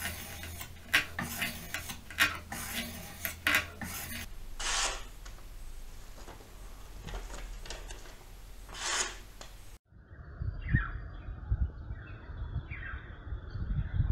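A sharpening stone on a jig's guide rod rasping across a knife blade in repeated quick strokes. Then come two longer swishes of the blade slicing through paper as a sharpness test. About ten seconds in the sound cuts to a few short falling chirps, like a bird's, over a low wind rumble.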